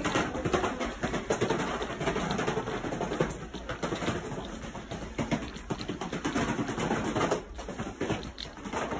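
Cardboard cereal boxes toppling one after another in a long domino chain onto a tile floor: a rapid, continuous clatter of small slaps.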